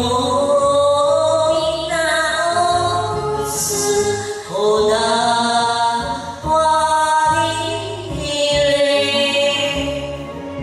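A woman singing an enka song into a karaoke microphone over a backing track, holding long sustained notes between short breaths.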